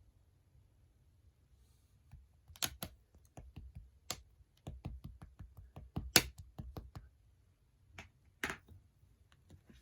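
Slime being pressed and squeezed by hand, giving a quick run of small wet clicks and a few louder pops of trapped air. It starts about two seconds in, and the loudest pop comes about six seconds in.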